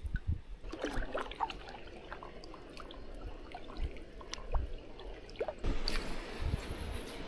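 Kayak paddle strokes: the blades dipping and pulling through the water, with drips and small splashes and the occasional gurgle.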